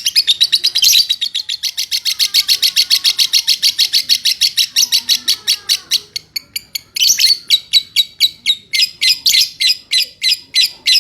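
A small songbird calling in a fast, unbroken run of short, high chirps, several a second, which turns more spaced and uneven after about six seconds.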